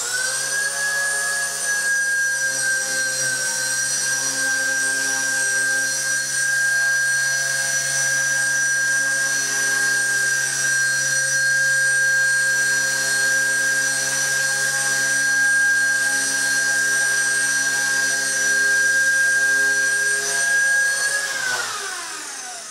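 HiSKY FBL100 nano RC helicopter's electric motor and rotor blades whining at a steady high pitch in flight. Near the end the pitch falls as the motor winds down on landing.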